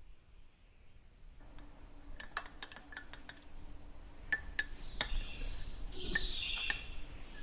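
A soundtrack of sharp clinks and ticks, some in quick pairs, over a faint low hum. From about five seconds in come high chirping calls, like birdsong, each about a second long.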